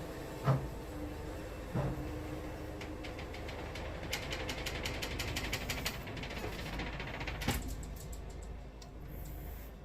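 Wood-Mizer band sawmill running with a steady engine hum, a couple of knocks early on, then a fast rattling ticking for a few seconds in the middle that ends in a sharp click.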